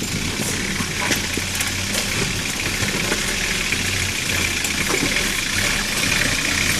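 Korando off-road jeep's engine running steadily at low revs, with a few faint clicks over it.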